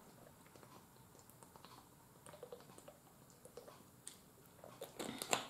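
A person drinking water from a plastic bottle: faint swallowing gulps and small mouth and bottle clicks, with a louder brief rush of noise near the end.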